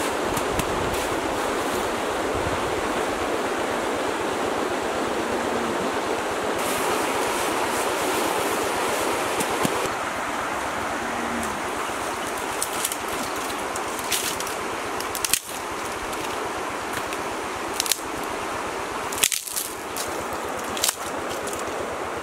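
A steady outdoor rushing noise for the first half; then, from about the middle on, dry sticks and branches being snapped by hand, about six sharp cracks among lighter rustling of twigs.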